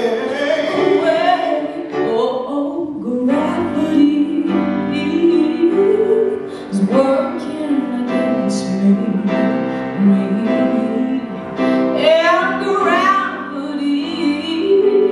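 Teenage girl singing through a microphone, accompanied by a grand piano.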